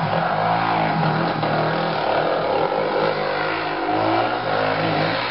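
ATV engine running under changing throttle, its pitch rising and falling as it revs up and eases off over rough trail.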